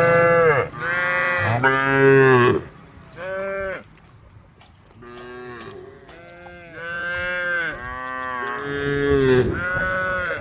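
Several cows mooing, their calls at different pitches: a few short moos in the first four seconds, then longer moos that overlap from about five seconds in.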